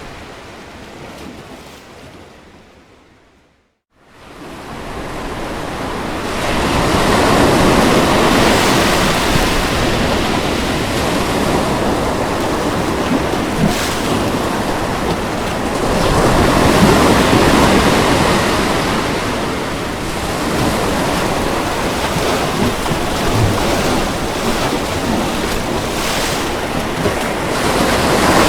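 Ocean surf washing in steadily, a continuous rushing noise that swells and eases, fuller around eight and seventeen seconds in. About four seconds in it fades out to a moment of silence and fades back up.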